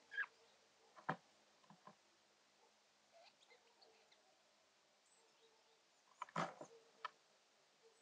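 Eurasian jay making a few brief, soft sounds, with sharp short clicks about one and two seconds in and a louder cluster of short sounds about six and a half seconds in.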